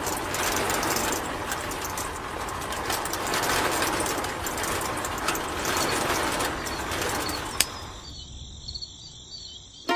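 Miniature model sand-sifting machine running: its small electric motor drives the bucket-elevator belt and a shaking sieve, giving a steady rattle. About three-quarters of the way in there is a click as it is switched off, and the rattle stops.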